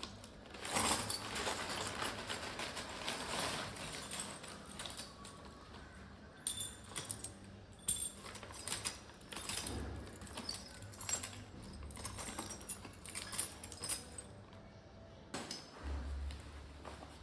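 Rustling, then a run of small metallic clicks and rattles as a bag's zip and slider are handled and worked during repair.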